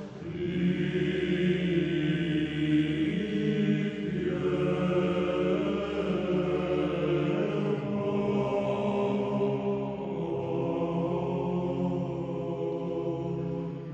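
Background music: church chant by low voices, holding long sustained chords that shift to new pitches every few seconds.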